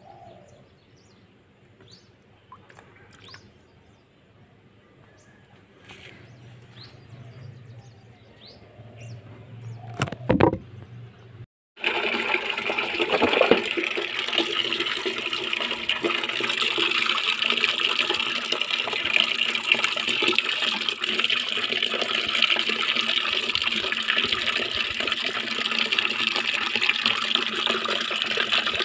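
Faint handling and splashing of mushrooms in a basin of water, with one thump about ten seconds in. Then, after a brief break, water gushes steadily into a metal basin full of mushrooms being rinsed.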